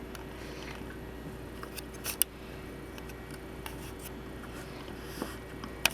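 Light plastic clicks and taps from handling a humidifier's full water tank, a few sharp ones about two seconds in and near the end, over a faint steady hum.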